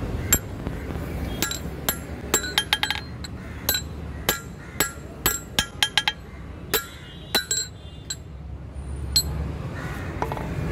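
About twenty light, ringing metal-on-metal clinks of a hammer and steel rebar against an anvil, irregularly spaced, with a quick run of taps about two and a half seconds in. A low steady rumble runs underneath.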